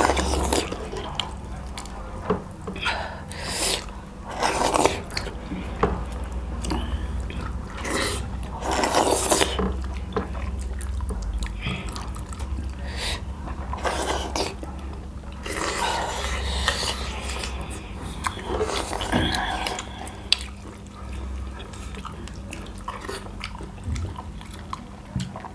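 Close-miked eating of finger-millet dhido with chicken curry: wet chewing, smacking and squelching in irregular bursts, with occasional clinks of a plate.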